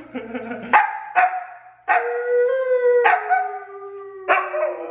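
Siberian huskies howling, a husky on the couch joining in with dog howls played from a laptop. Long, steady-pitched howls overlap, with a new howl starting sharply about every second.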